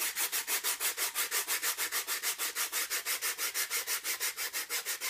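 Sandpaper rubbed back and forth over the bared edge of 3 mm foam board in fast, even strokes, about six or seven a second.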